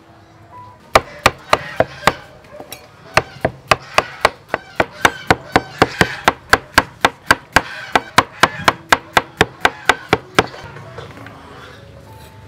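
Cleaver chopping ripe banana into slices on a wooden chopping board, each cut ending in a sharp knock of the blade on the wood. A short burst of five cuts, a brief pause, then a steady run of about three cuts a second that stops a couple of seconds before the end.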